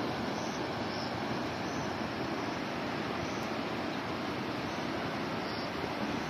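Steady, even rush of a fast river's water flowing below.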